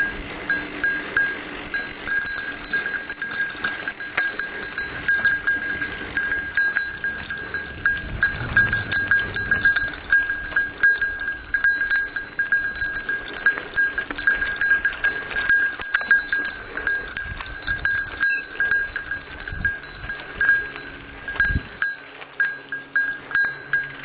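A small bell ringing and jingling over and over, with frequent rattling knocks, rung constantly as a warning to other riders on the trail.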